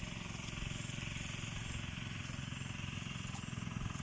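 An engine running steadily in the background, a low, even, finely pulsing drone, with a few faint crisp crunches from raw jicama being bitten near the end.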